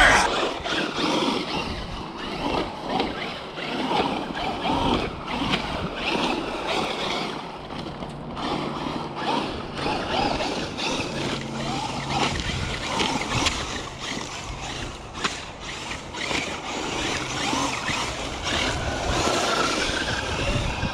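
Traxxas Unlimited Desert Racer RC truck driving over dirt and rocks: its brushless electric motor whines up and down in pitch with the throttle over a steady noise of tyres and gravel.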